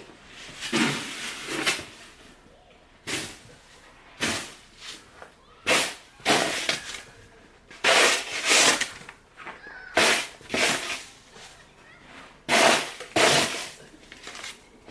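Footsteps crunching through deep snow, a sharp crunch with each step, often in pairs about half a second apart.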